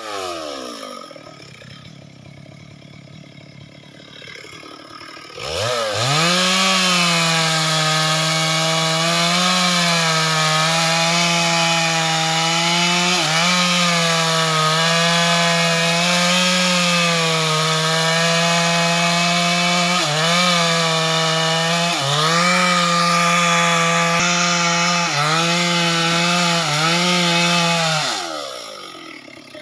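Two-stroke chainsaw idling, then opened to full throttle about six seconds in and held there, its pitch dipping briefly now and then as the chain loads up cutting into a big sonokeling (Indian rosewood) trunk. It drops back to idle near the end.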